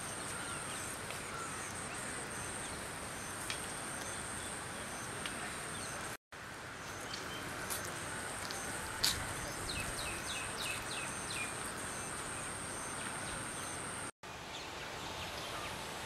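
Rural outdoor ambience: a steady hiss of background noise under a constant high-pitched whine, with scattered bird chirps and a quick run of chirps about ten seconds in. The sound cuts out briefly twice, at edits.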